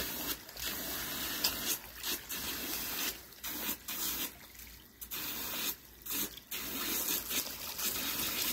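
Water running from a garden hose and splashing, the rush dropping away briefly several times.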